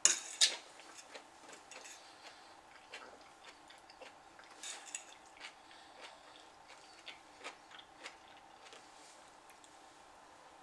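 A fork clinking and scraping on a plate of noodles: two sharp clinks at the start, then scattered light ticks, over a faint steady hum.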